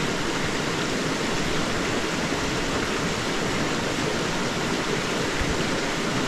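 River water rushing over rocks in a steady, unbroken rush with no sudden events.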